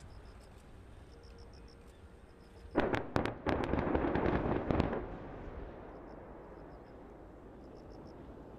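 A salvo of distant explosions on a live-fire range: a few sharp blasts about three seconds in, running straight into a dense crackle of detonations for about two seconds, then a fading rumble.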